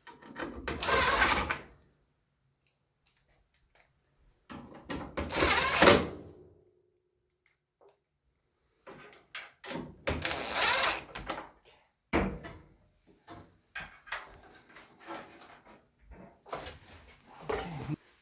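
Dryer cabinet parts being handled during a heater-element repair: three scraping, sliding noises a few seconds apart, then a run of small knocks and clicks.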